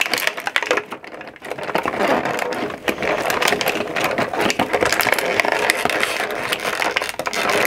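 Thin cardboard and paper being torn and crumpled by hand, a dense crackling and ripping as a stuck compartment is pried open; it thickens from about two seconds in.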